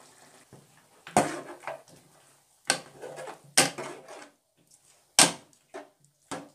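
A steel ladle knocking and scraping against a steel karahi while chicken and tomatoes are stirred, about six irregular clanks.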